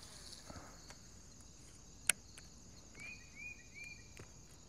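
Steady high chirring of insects. A single sharp click comes about two seconds in, and three short chirps follow about a second later.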